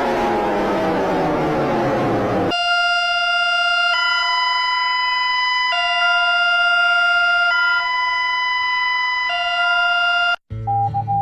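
Emergency alert alarm tones. A harsh siren-like sound falls in pitch and stops about two and a half seconds in. Then a steady two-tone alarm alternates between a low and a high pitch about every two seconds. It cuts off near the end, and short pulsing beeps begin.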